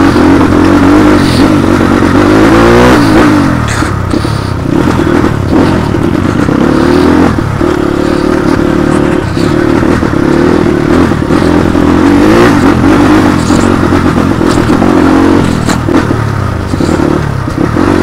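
Motorcycle engine running under way, its pitch dipping and rising with the throttle about three seconds in and again near the end, with a few clattering knocks.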